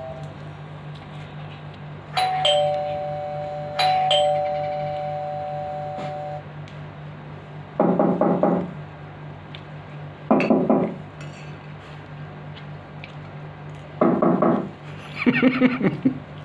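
Two-tone ding-dong chime, like a doorbell, sounding twice about two seconds apart, each pair of notes ringing on and fading. Later come three short bursts of a voice.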